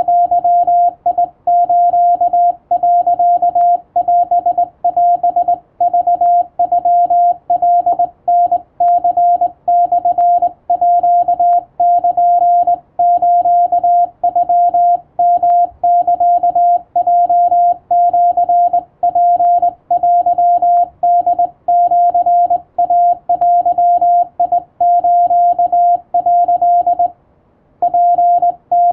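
Hand-keyed Morse code from a straight key, heard as the radio's sidetone: a single steady tone of about 700 Hz broken into dots and dashes of Japanese wabun code, with a pause of about a second near the end.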